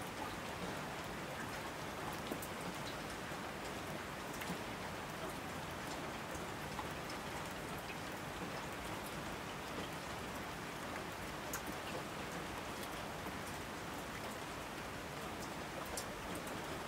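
Steady rain falling and splashing on a wet surface: an even hiss with single drop splats standing out here and there.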